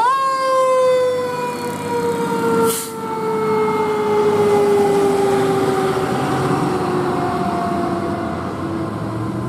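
Fire truck siren winding up sharply to its peak, then winding slowly down in one long falling wail. A short hiss comes about three seconds in.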